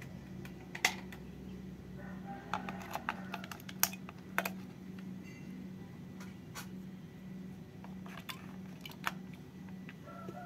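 Two AA batteries being fitted one after another into the plastic battery compartment of a toy train engine: scattered clicks and taps of battery against plastic and spring contacts, loudest in a cluster about three to four seconds in. A steady low hum runs underneath.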